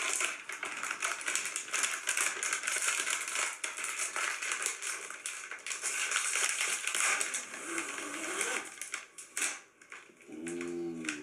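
Plastic wrapper of a Chips Ahoy cookie package crinkling and crackling as it is torn open and handled. The rustling drops away after about nine seconds, followed by a short vocal sound near the end.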